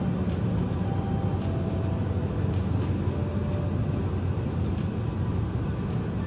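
Small aircraft's engine running steadily in flight, heard from inside the cabin as an even low drone.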